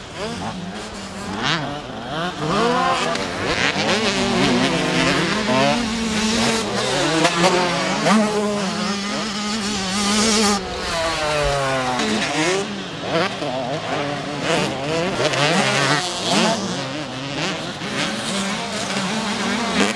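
Two-stroke motocross bikes racing, their engines revving up and down through the gears, with several engines' rises and falls overlapping.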